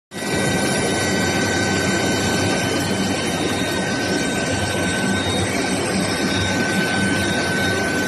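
Long-bar induction heat treatment line running: a steady industrial noise with a constant high-pitched whine and a low hum.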